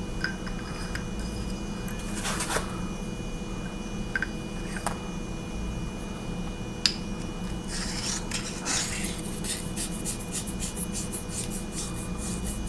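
Metal clinks and clicks of 18650 lithium-ion cells being put into a flashlight's anodized aluminium body. The clicks are scattered, with one sharp click about seven seconds in and a quick run of small ticks near the end.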